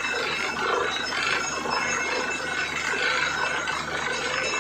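Truck-mounted borewell drilling rig running steadily, its engine and drill head making a dense, continuous mechanical noise as the bore flushes out muddy water.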